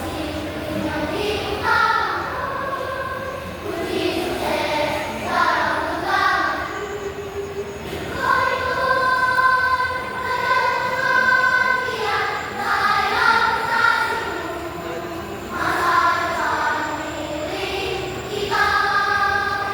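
Children's choir singing a song in phrases, with long held notes partway through.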